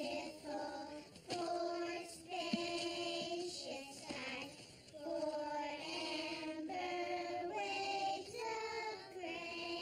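A group of children singing a song together, holding each note for about a second before moving to the next.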